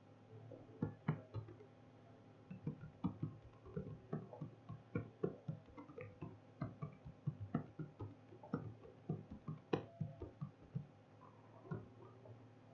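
Typing on a computer keyboard: irregular key clicks, several a second in short runs with brief pauses, faint.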